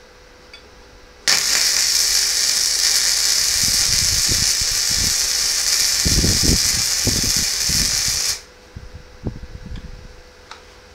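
MIG welder arc running a bead on steel plate: a loud, steady sizzling hiss that starts suddenly about a second in and cuts off suddenly about seven seconds later, with low pops in its second half.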